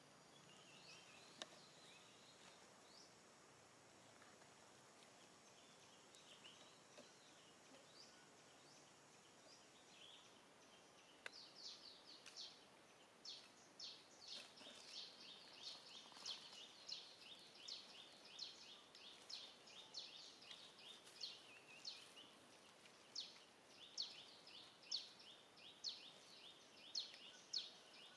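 Faint outdoor background. From about eleven seconds in, a bird gives a rapid, continuing series of short, high-pitched chirps, each sweeping downward, several a second.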